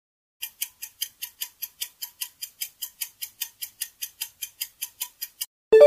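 Quiz countdown-timer sound effect: a clock ticking fast and evenly, about five ticks a second. Just before the end it gives way to a bright, ringing chime that marks time up and the answer reveal.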